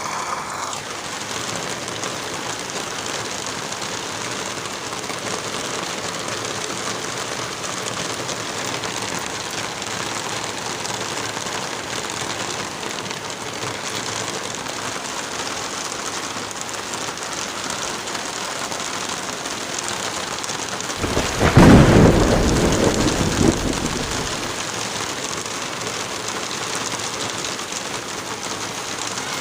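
Steady rain hissing down. Near three-quarters of the way through, a deep roll of thunder swells and fades over about three seconds.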